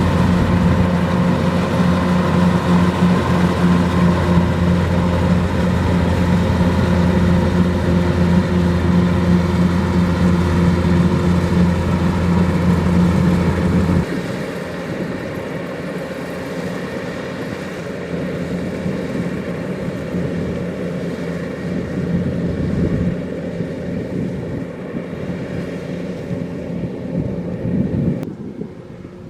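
Kubota DC-105X rice combine harvester running steadily with its diesel engine hum. The sound is loud at first and drops suddenly about halfway through, then drops again near the end.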